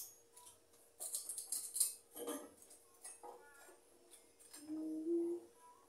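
A cloth tablecloth being shaken out, spread and smoothed over a kitchen table: rustling and flapping in short bursts. A short, low, steady tone sounds about five seconds in.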